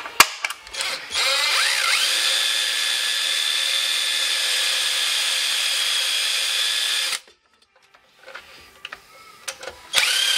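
Cordless drill boring into the car's sheet-metal floor pan: a sharp snap and some clicks, then the motor spins up about a second in and holds a steady high whine for about six seconds before stopping. After a short pause with light handling clicks, it starts up again near the end.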